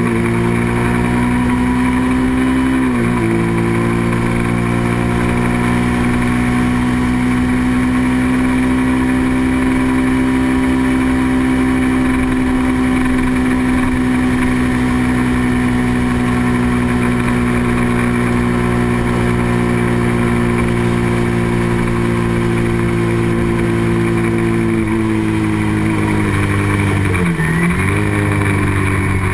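A racing motorcycle's engine running at steady revs under throttle, with a brief dip and recovery in revs about three seconds in and again near the end.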